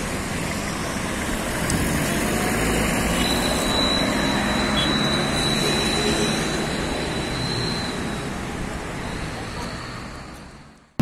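Motorcycle engines running with wind noise rushing over the microphone, a steady dense noise that fades out near the end.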